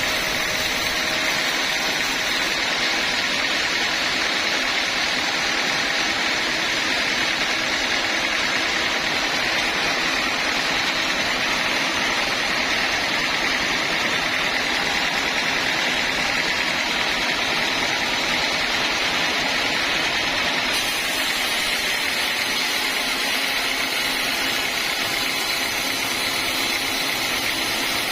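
Sawmill machinery running steadily, a constant even mechanical noise with no breaks.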